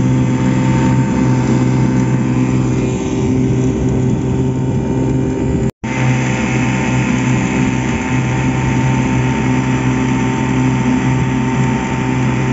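Small outboard motor running steadily as it pushes a boat along, with a low, even engine drone over a rushing hiss. The sound drops out for an instant about halfway through.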